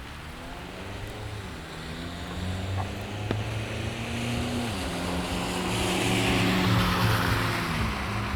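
A car driving past on a wet street in the rain: its engine hum and the hiss of tyres on wet pavement grow louder, peak about two thirds of the way through, then begin to fade.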